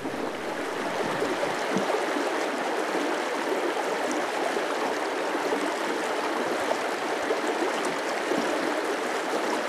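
Shallow rocky creek rushing steadily over and between boulders.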